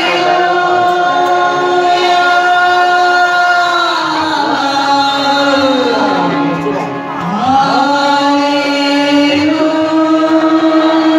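Amplified devotional singing through a microphone and loudspeakers, with voices holding long sustained notes. About halfway through, the pitch slides down and comes back up.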